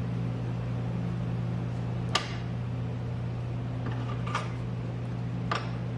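Steel pipes clinking against the chop saw's steel vise and deck as they are shifted by hand: three sharp metallic knocks, the loudest about two seconds in. A steady low hum runs underneath.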